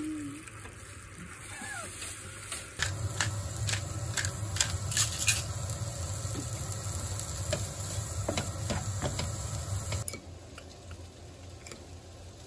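Julienned carrots sizzling as they are stir-fried in a nonstick frying pan, with a plastic slotted spatula scraping and clicking against the pan many times. The sizzling starts about three seconds in and cuts off abruptly about ten seconds in.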